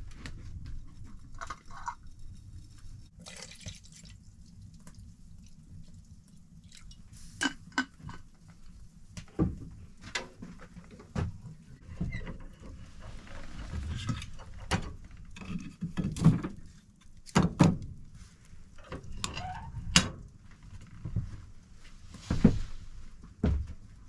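A short pour of milk from a glass bottle into a small metal pot, followed by scattered knocks, clinks and scrapes as the wood stove's firebox door is opened, the fire is tended and the door is shut again.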